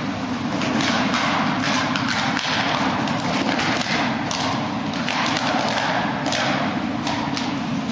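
Scattered light thumps and taps from a Beauceron running on rubber matting and picking up a retrieve object, over a steady low background rumble.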